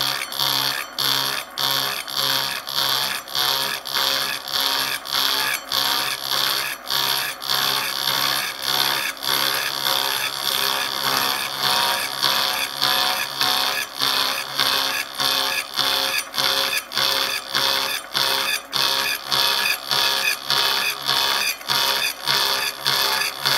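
Disc cutter on a milling machine arbor sawing a slot into a metal block: a continuous metal-cutting sound over the motor's steady hum, pulsing evenly about twice a second with each turn of the cutter.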